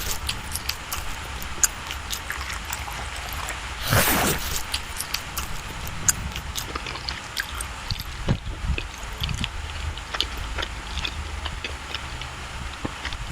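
Close-miked eating of soft creamy cake: wet mouth clicks and lip smacks from chewing, with a short louder rush of noise about four seconds in.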